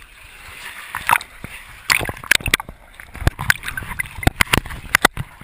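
Swimmers splashing and sloshing in a freshwater cave pool: an irregular run of sharp splashes over a steady wash of moving water.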